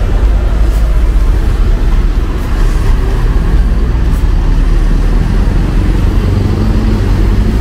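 Mercedes-Benz OH 1626 coach's rear-mounted diesel engine running with a loud, deep rumble as the bus pulls away. Its pitch rises near the end as it accelerates.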